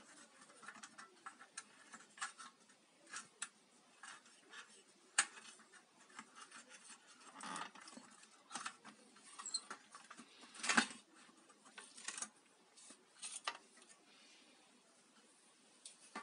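Faint scattered clicks, rustles and small metallic knocks of hands handling the wires, switch and terminal block inside an opened electric hotplate's sheet-metal housing, with one sharper knock about two-thirds of the way through.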